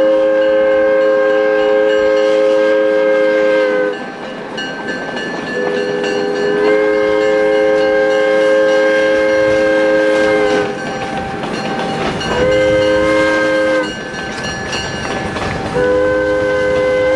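A Kiski Junction Railroad diesel switcher's air horn sounds a three-note chord in the grade-crossing pattern: two long blasts, a short one, then a long one that is still sounding at the end. Between the blasts the train's rolling rumble and wheel clatter can be heard.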